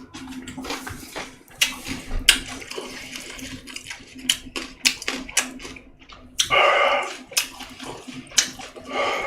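Close-up eating sounds: wet chewing and lip smacking, with many small clicks, and a short voiced sound about six and a half seconds in.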